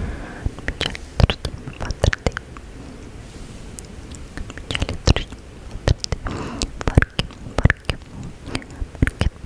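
ASMR mouth sounds close to the microphone: irregular wet clicks and smacks, several a second, over a quiet background.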